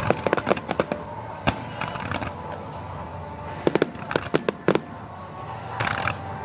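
Aerial fireworks from a starmine display going off: a rapid string of sharp bangs at the start, a single bang about a second and a half in, and another quick cluster of bangs around four seconds in.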